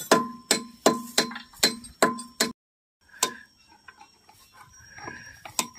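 Hand tools tapping and clinking on battery terminals and cable clamps. A sharp ringing metal tap comes about every half second for the first half, then a few fainter, irregular clicks.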